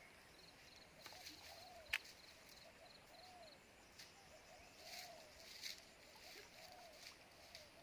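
Faint outdoor ambience of animal calls: short calls that rise and fall, repeating one to two times a second, and a fast, high chirping trill during the first few seconds. There is a single sharp click about two seconds in.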